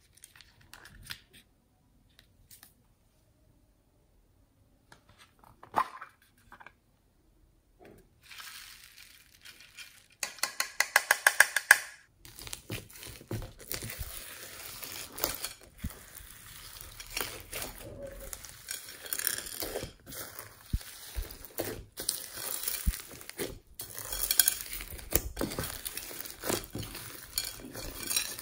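A few faint clicks of a small plastic toy being handled, then a quick, loud run of clicks lasting about two seconds. From there on, steady crackling, squelching and light clinking as slime loaded with foam beads is pressed and mixed in a glass bowl.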